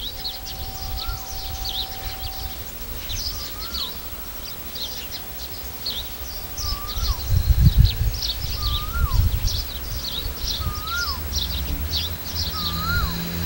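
Birds calling: a repeated whistle that rises then drops, every second or two, over many short high chirps. Under them a low rumble swells about eight seconds in, and near the end the steady drone of an approaching diesel railcar's engine begins.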